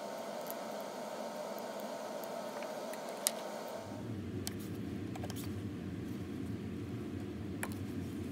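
Scissors cutting thin aluminum can sheet: a few faint snips and one sharp snip about three seconds in, over a steady hiss. About four seconds in the background changes to a lower hum with a few light clicks.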